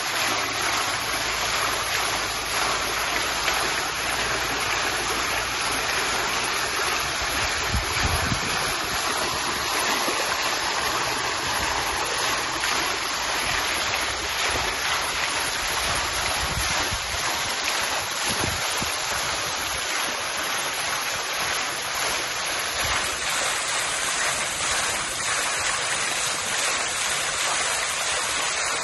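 Outdoor water fountain splashing steadily: a continuous rush of falling water.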